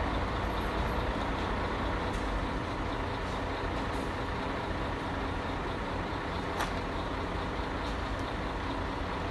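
Steady drone of an idling motor vehicle engine, low rumble with a hiss, and a few faint clicks.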